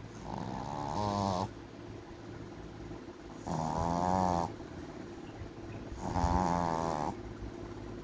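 Boston terrier snoring in its sleep: three snores, each about a second long, roughly two and a half seconds apart.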